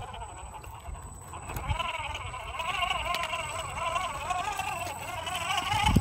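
RC rock crawler's electric motor and gear drivetrain whining, starting about a second and a half in. The pitch wobbles up and down a few times a second as the throttle changes. A low rumble of wind on the microphone sits underneath.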